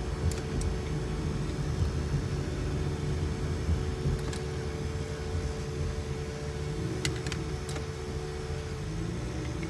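Car driving slowly, heard from inside the cabin: a steady low rumble of engine and tyres with a steady hum over it that stops about nine seconds in, and a few light clicks about seven seconds in.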